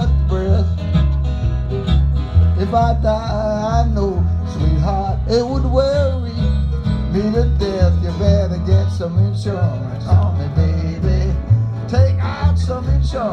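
Acoustic string band playing live: upright bass walking steady notes about twice a second under strummed acoustic guitars and mandolin, with a bending lead line on top.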